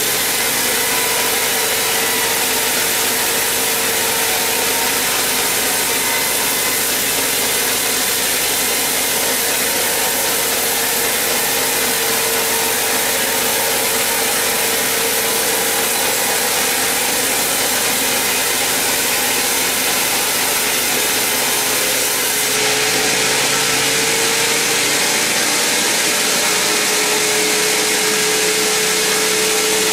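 Large sawmill band saw cutting through a huge mahogany log: a steady, loud rushing of the blade in the wood over a constant whine. About three-quarters of the way through it grows a little louder and brighter.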